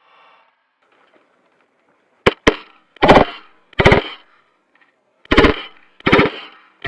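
Airsoft DMR rifle firing single shots at an irregular pace, about seven in all, each a sharp crack with a short buzzing tail.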